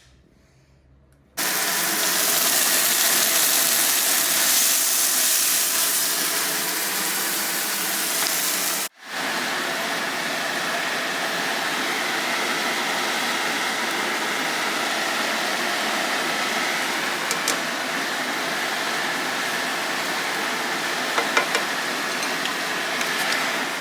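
A steady, loud rushing hiss that starts suddenly about a second in, breaks off for an instant near the middle and resumes a little quieter, with a few faint clicks late on.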